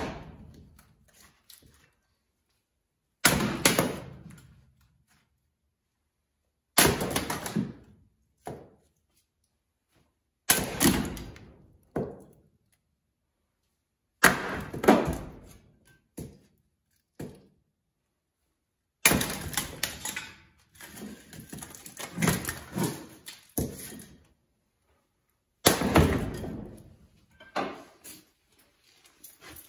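A short-handled axe splitting firewood on a chopping block: seven sharp chops a few seconds apart, each followed by smaller knocks as the split pieces fall.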